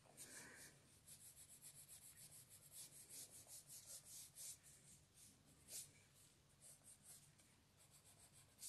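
Faint, quick strokes of a drawing tool on paper, several a second, as the shape is drawn in and shaded.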